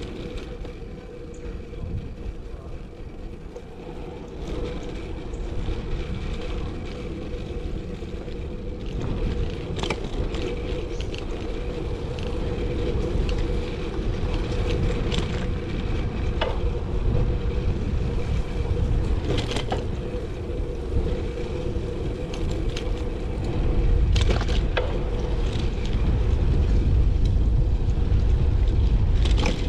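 Wind buffeting and road rumble on a chest-mounted action camera while riding a road bike, with scattered clicks and rattles. The rumble grows louder near the end.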